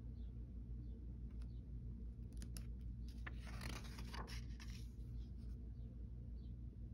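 Paper pages of a printed instruction manual being turned and handled: a rustling stretch with a few crisp clicks in the middle, over a low steady hum.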